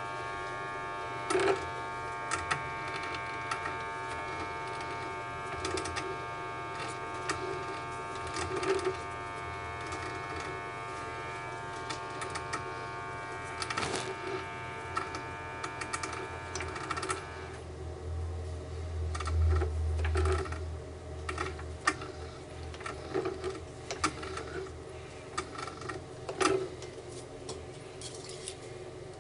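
An electric machine-tool motor running with a steady whine that cuts off about two-thirds of the way in, with scattered clicks and knocks of metal parts being handled and a short low rumble just after it stops.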